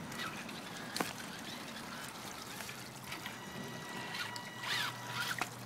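Shallow creek water trickling over rocks, with a sharp click about a second in and a faint steady low hum from about halfway through.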